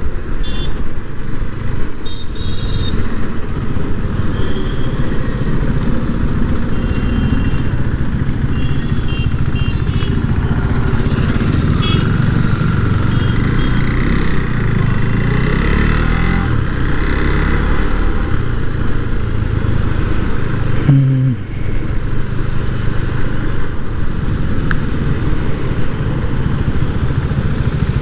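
Motorcycle being ridden: the engine runs steadily under road and wind noise, its pitch rising and falling through the middle as it changes speed.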